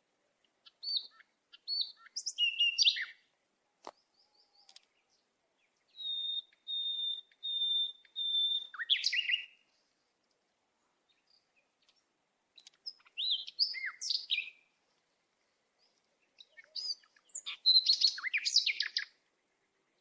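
A songbird singing in four separate phrases of high whistled chirps and trills, with silence between them. The second phrase is a row of even repeated notes ending in a falling sweep.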